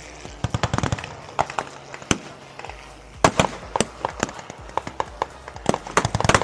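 A string of sharp, irregular pops and clicks, coming in clusters, over a faint background.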